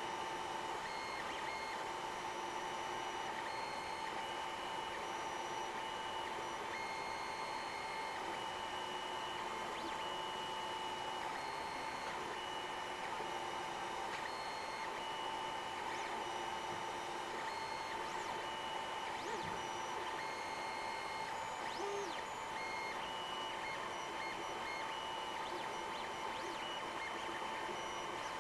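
3D printer running: its stepper motors give a steady whine, with higher tones that switch on and off every second or two as the print head changes moves.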